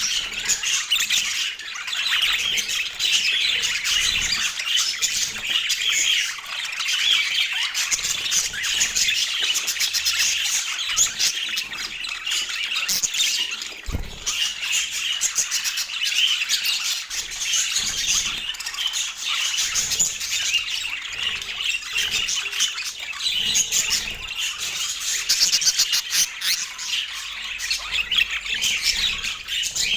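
Budgerigar chattering: a continuous stream of fast high chirps, warbles and squawks.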